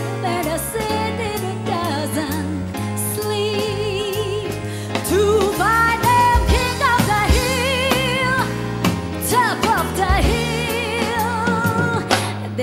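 A woman singing a pop song, holding notes with a strong vibrato, over a backing band with drums and a steady bass beat.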